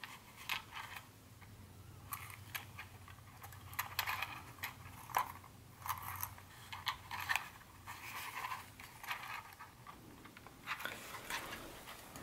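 Small plastic HO-scale Bachmann John Bull passenger cars being handled, clicking and rattling against one another with the soft rub of cotton gloves: irregular light clicks and taps with rustling between them.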